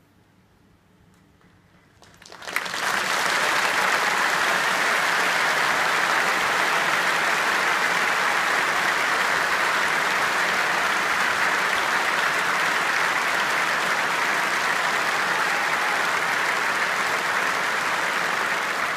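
A large concert-hall audience breaks into applause about two and a half seconds in, after a brief hush at the end of the carol, and keeps clapping steadily.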